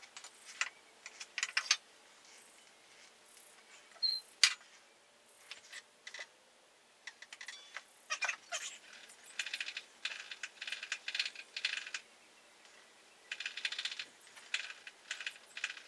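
Metal hand tools clicking and clinking in short bursts of rapid clicks as the shift lever is taken off a motorcycle, with one sharp metallic click about four and a half seconds in.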